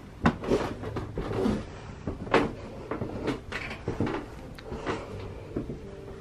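Footsteps going up an old wooden staircase: an uneven series of knocks from the treads, the loudest about a third of a second in and again about two and a half seconds in.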